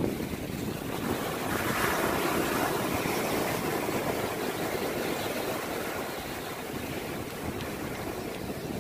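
Small waves breaking and washing up a sandy beach: a steady surf wash that swells about two seconds in and then eases.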